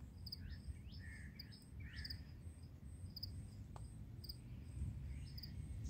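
Faint outdoor ambience: insects chirping in an even rhythm about twice a second, with a few short bird calls in the first two seconds over a low background rumble.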